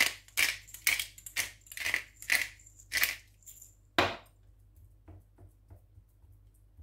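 Hand-twisted pepper mill grinding black pepper in about seven short grinding strokes, about two a second, then a single sharp knock about four seconds in as the mill is set down on the counter.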